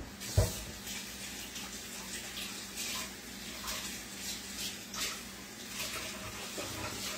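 Kitchen sink tap running steadily as dirty dishes are put in the sink, with a knock of a dish about half a second in and a few lighter clinks.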